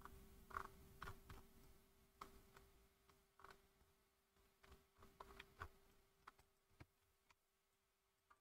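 Near silence: about a dozen faint scattered clicks that die out near the end, over a faint steady hum.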